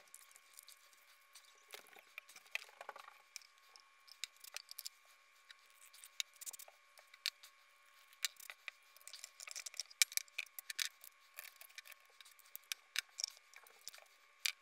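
Quiet, irregular small clicks and taps of 3D-printed resin egg-shell pieces being handled and fitted together, with a glue bottle and spray can picked up and set down; busier in the second half, over a faint steady high tone.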